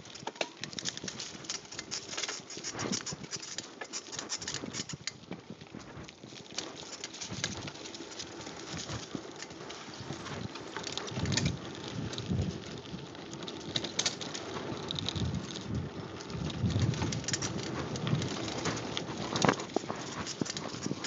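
Mountain bike descending fast on a dirt singletrack: a steady crackle and rattle of tyres over dirt and dry leaves, with heavier low thumps of the bike jolting over bumps a little past halfway and again near the end.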